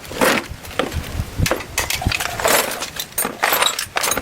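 Irregular clattering, knocking and scraping of hard parts and tools being handled during scooter repair work.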